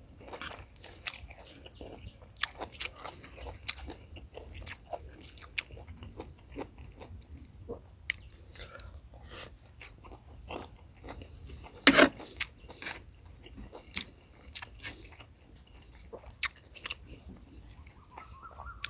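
Insects trilling steadily on two high pitches, the higher one pulsing evenly. Over them come irregular clicks and knocks, with one sharp knock about twelve seconds in.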